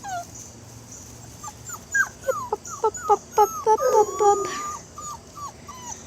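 Young puppies, about 39 days old, whimpering and yelping in a string of short, high cries that each fall in pitch, starting about a second and a half in.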